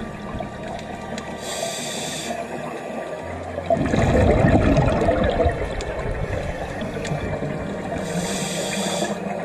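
Scuba regulator breathing underwater: a short hiss of inhalation about a second and a half in and again near the end, with a longer noisy rush of exhaled bubbles in between.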